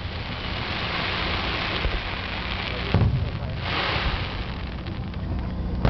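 Aerial fireworks shells bursting: a long high hiss that fades out, a sharp bang about three seconds in, another short hiss, then a bang right at the end.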